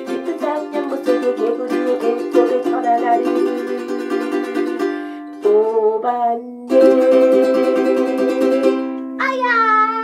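Ukulele strummed quickly and evenly, with a woman singing along, for about five seconds. After a short break a single chord rings out, and near the end she gives a short sung cry of "aya!".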